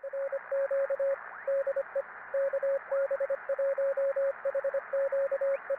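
Morse code: a single tone of about 550 Hz keyed in quick dots and dashes over a steady band of receiver hiss, as CW sounds on a shortwave radio. A couple of faint rising whistles sweep up through the hiss.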